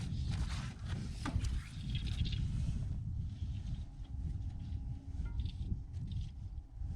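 Wind rumbling on the microphone outdoors on a lake, with a few light knocks in the first second or so and a faint steady hum later on.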